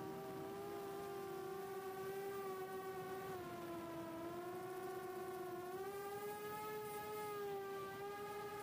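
Four HGLRC 1303.5 4500kv brushless motors of a small FPV quadcopter whining steadily in cruise, heard from a camera on board. The pitch sags a little and then rises again about six seconds in.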